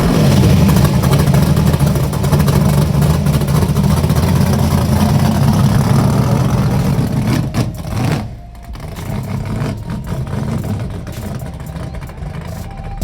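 Drag race cars at full throttle making a pass down the strip. The engine sound is loud for about eight seconds, then falls away suddenly and continues more quietly.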